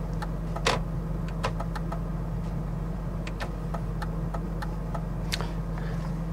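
BMW E53 X5 turn-signal relay ticking, a few sharp clicks a second, over the engine's steady idle. The indicators are being checked, and the left-hand rear indicator bulb has died.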